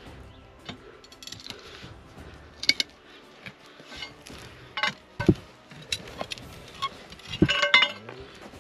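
Steel digging bar striking and prying against stones: irregular metallic clinks and knocks, with a louder run of ringing clanks near the end.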